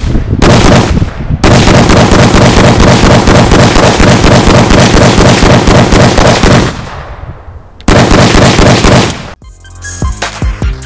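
Rapid gunfire in three long strings of shots fired in quick succession, with a short break between strings. Music with a beat starts near the end.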